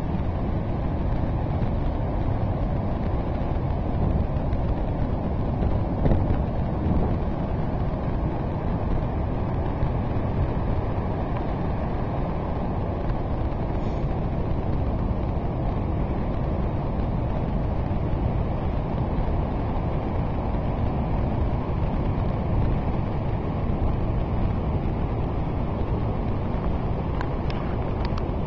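Steady low roar of heavy surf after a typhoon, mixed with wind buffeting the microphone.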